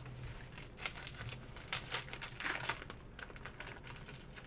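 Plastic trading-card pack wrappers crinkling as packs and cards are handled, in a run of irregular crackles that is busiest in the middle.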